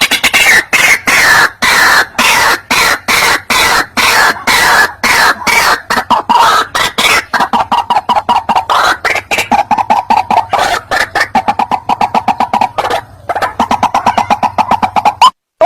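White-breasted waterhen (ruak-ruak) lure call: a loud, fast run of harsh repeated notes, several a second. It cuts off abruptly near the end.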